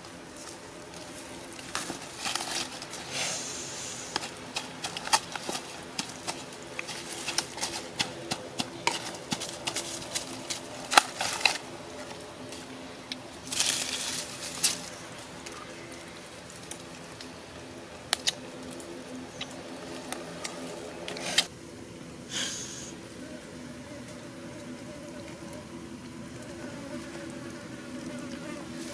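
Sharp taps and clicks of a chili dip being mixed and worked in a coconut-shell bowl, thick for the first half or so and sparse later, with a brief rustling burst about halfway. A steady low buzz like flying insects runs underneath.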